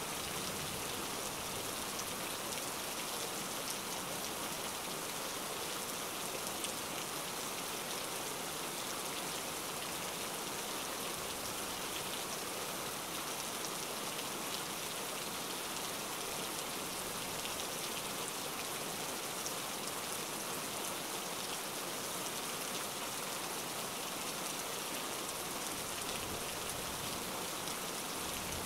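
Steady rain: an even hiss of rainfall with scattered faint drop ticks, unchanging throughout.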